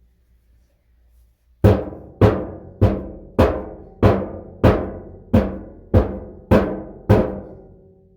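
A rock pounding the tin bathtub's metal floor around the drain hole: ten even strikes, about one every 0.6 s, each ringing out and dying away. The blows are denting the tin down around the hole so the water drains into it.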